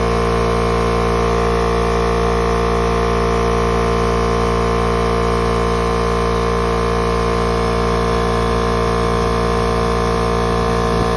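Husky oil-free air compressor running, a loud steady drone with many fixed tones, hard to talk over.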